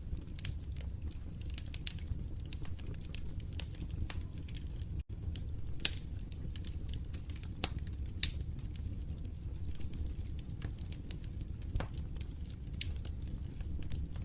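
Log fire crackling: frequent irregular sharp pops and snaps over a steady low rumble of the flames, with a split-second gap in the sound about five seconds in.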